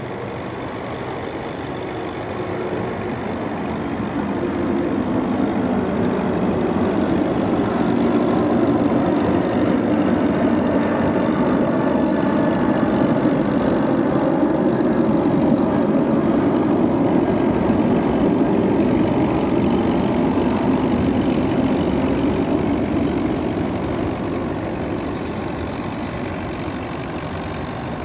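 Nuffield 460 tractor's engine working steadily under load while it drives a manure spreader that is throwing out manure. It grows louder for the first third or so as it comes nearer, holds, then fades as it moves away.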